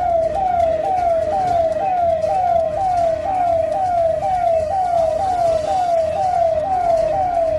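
Emergency siren sounding a rapid falling wail that repeats about twice a second, over a low rumble; it cuts off suddenly near the end.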